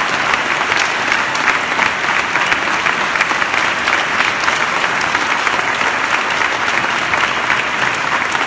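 Crowd applauding steadily, with dense clapping throughout, in response to a applause line in a political speech.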